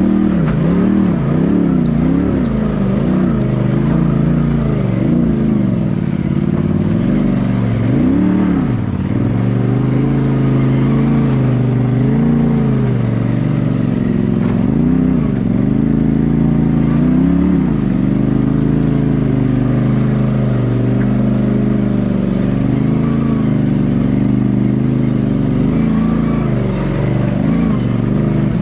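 Side-by-side UTV engine working under load as it climbs over rocks, its revs rising and falling with the throttle every second or two.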